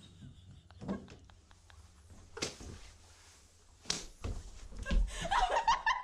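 A few faint clicks and two sharp knocks, as of wood or a window frame being handled, then voices and laughter starting about five seconds in.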